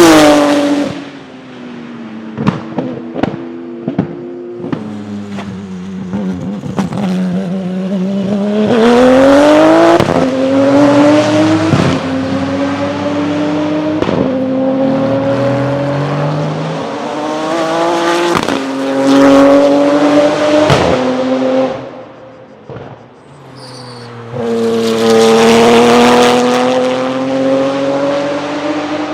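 Porsche 997 GT2 RSR's twin-turbo 3.9-litre flat-six racing engine accelerating hard through the gears on its sequential gearbox, the pitch climbing and dropping at each upshift. After an early lift-off there is a run of sharp cracks and pops, and near the end there is a brief lift before the engine pulls hard again.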